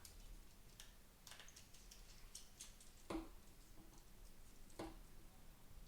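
Quiet, scattered small clicks and light taps from handling small parts and tools during a mouse repair, with two more distinct taps about three and five seconds in.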